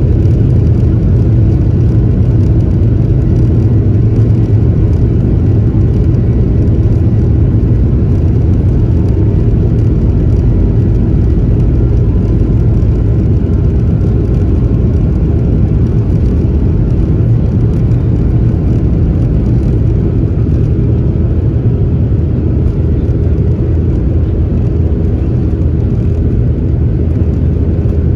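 Steady roar of a Boeing 737's jet engines and airflow heard inside the passenger cabin during take-off and initial climb, low and even throughout, with faint steady whining tones above it.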